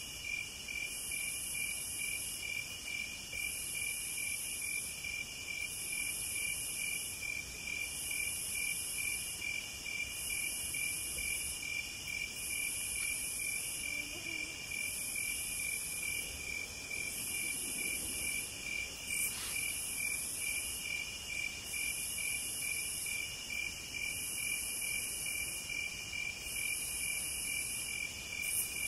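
Chorus of crickets and other chirping insects: a steady, rapidly pulsing trill, with a higher buzz above it that swells and breaks off about every two seconds.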